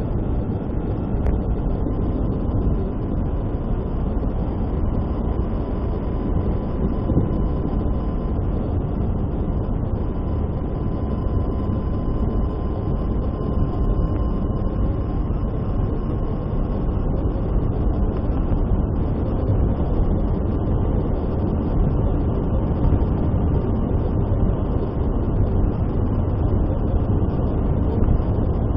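Steady road and engine noise of a car driving on a highway, heavy in the low end, with a faint thin whine through the middle.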